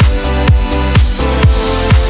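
Background electronic dance music: a steady kick drum about two beats a second over held synth chords and a bass line.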